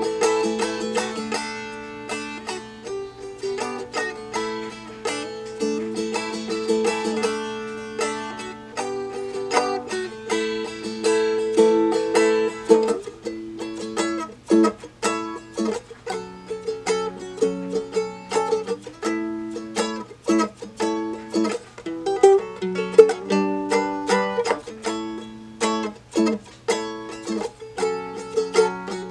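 Seagull Merlin, a four-string dulcimer-like instrument tuned D-A-D-D, played through a song in a run of picked and strummed notes over steadily ringing strings.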